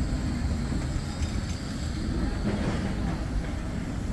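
Bombardier Flexity 2 tram running slowly past at close range under a speed restriction, a steady low-pitched noise from the car on the rails.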